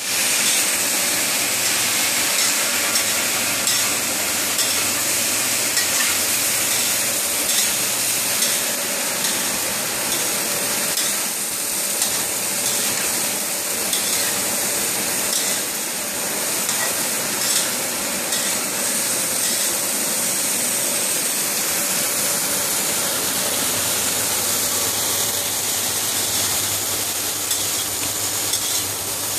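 Vegetable strips sizzling as they are stir-fried in a metal wok, with the spatula clicking and scraping against the pan.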